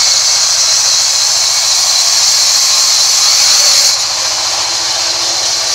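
Sawmill band saw cutting through a rain tree log, a loud steady high-pitched hiss of the blade in the wood; the sound drops a little about four seconds in.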